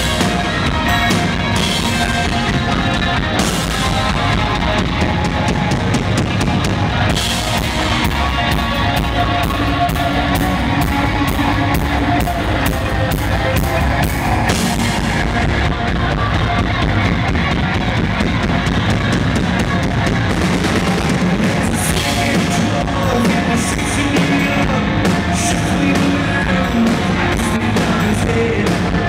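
Live rock band playing loud through a festival PA: drum kit, electric bass and electric guitar, with a man singing.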